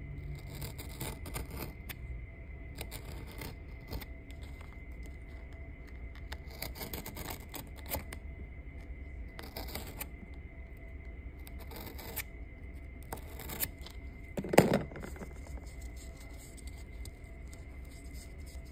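Craft knife blade cutting and scoring thin brown cardboard in short, irregular scraping strokes, over a faint steady high tone. A single louder knock comes about fifteen seconds in.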